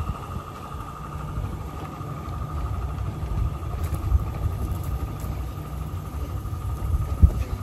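Garden-railway model train rolling past, the coaches' wheels rumbling steadily on the track, with a steady whine from the double-headed diesel-outline locomotives that fades over the first few seconds as they draw away.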